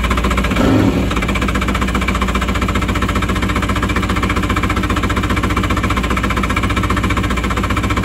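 The two-stroke twin engine of a 1988 Kawasaki 650SX stand-up jet ski runs steadily and loudly, kept going on gas poured into the intake, and sounds healthy. It will not run on its own fuel supply, which the owner puts down to a carburettor that needs rebuilding.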